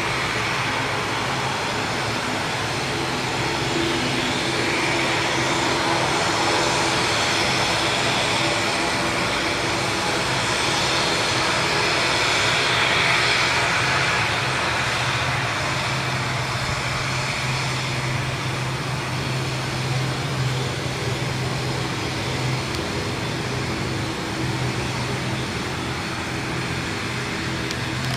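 Wings Air ATR 72-500's twin turboprop engines running at taxi power: a steady propeller drone under a hissing whine, growing louder towards the middle as the plane passes and then easing off.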